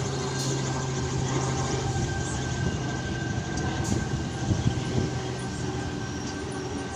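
A Sydney Trains Tangara electric train at the platform, running with a steady electrical hum and a thin high whine over a rumbling noise.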